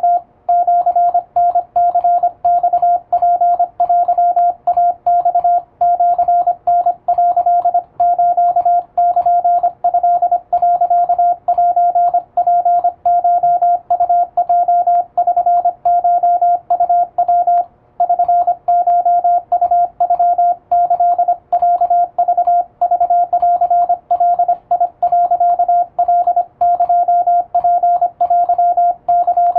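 Morse code sidetone from an electronic keyer: a single steady mid-pitched beep keyed rapidly on and off in dots and dashes, sending Japanese (wabun) Morse in plain text at a fast pace. It pauses briefly about halfway through.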